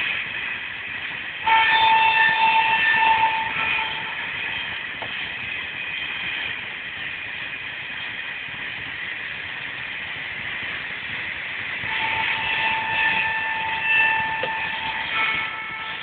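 Passenger train coaches rolling past at close range: a steady rushing noise laced with high-pitched squealing tones. A louder, shrill squeal sets in about a second and a half in, fades by about four seconds, and returns from about twelve seconds on.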